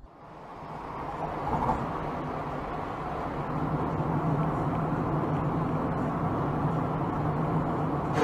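Steady road and engine noise heard inside a car driving at speed, fading in over the first second: a rumble with a low hum.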